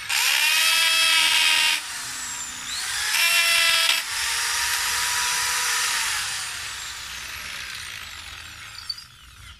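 Corded electric drill boring through a hardwood board. The motor whine rises in pitch twice in the first four seconds, with a brief dip between, runs steadier, then falls in pitch and fades as the drill winds down near the end.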